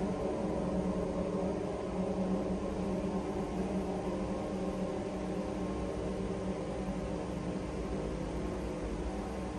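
A steady machine hum, with several held tones over a constant hiss.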